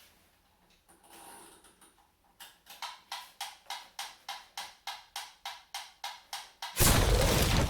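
Metronome ticking briskly and evenly, about four ticks a second, followed near the end by a loud burst of noise that cuts off suddenly.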